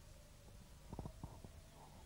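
Hungry stomach growling: a short run of low gurgles about a second in.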